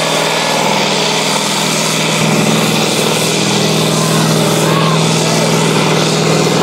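Diesel engine of a Kirovets K-700 articulated tractor running hard under full load as it pulls a sled, a steady loud drone that grows a little louder about two seconds in.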